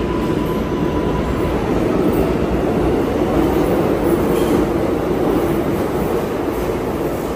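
New York City R142-family subway train running on the track, a steady rumble of wheels and car.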